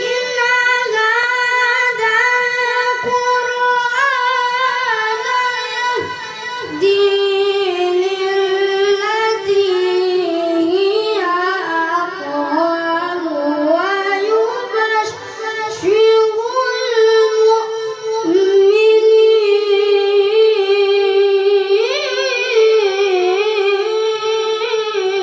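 A single high voice, a woman's or a child's, sings unaccompanied in long held notes with wavering melismatic ornaments. It breaks off for brief breaths a few times.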